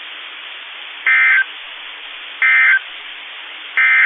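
Three short bursts of buzzing two-tone digital data from NOAA Weather Radio, evenly spaced a little over a second apart, over steady radio hiss: the SAME end-of-message code that closes the warning broadcast.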